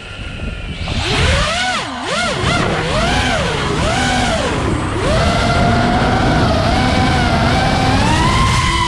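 Brushless motors and props of a 5-inch FPV racing quadcopter (Hypetrain 2306 2450kv motors, HQ 5048 props) whining as the throttle is worked. The pitch swings up and down several times, then holds higher and climbs again near the end, over a rush of air.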